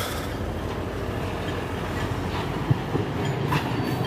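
Freight train of propane tank cars rolling slowly during switching, a steady low rumble with two sharp clacks from the wheels near the end.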